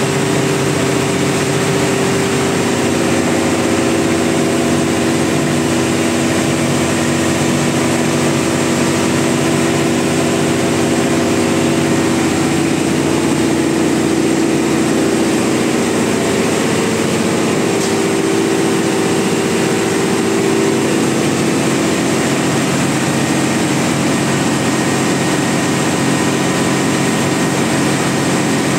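Heavy engine-room machinery running steadily: a loud, even drone with several steady hums under a wide hiss, from the running engine and its gearbox. The pitch of one hum shifts a little about two-thirds of the way through.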